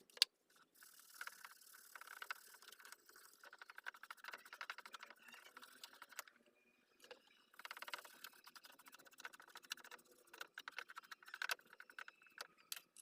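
Faint, rapid scratchy scrubbing on an amplifier circuit board, cleaning the freshly resoldered IC pins, in two spells with a pause about six seconds in.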